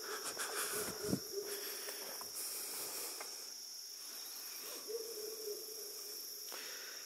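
Faint outdoor ambience dominated by a chorus of insects keeping up a steady high-pitched drone.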